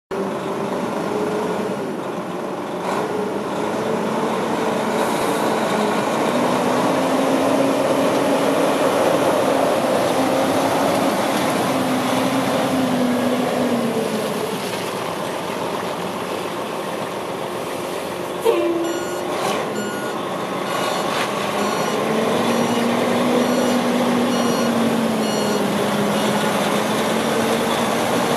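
Diesel engine of a 1998 Ford Aeromax tandem-axle day cab tractor running as the truck drives slowly, its pitch rising and falling with the throttle. About two-thirds of the way through there is a sudden sharp burst, then a reversing alarm beeps about once a second for several seconds.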